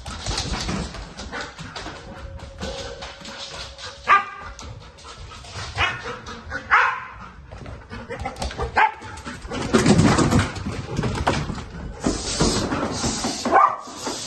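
A protection dog barks in several short barks while it runs through a house on a room search, its feet clicking on the wooden floor. It barks again near the end as it reaches the person hiding in a doorway, alerting on the found intruder.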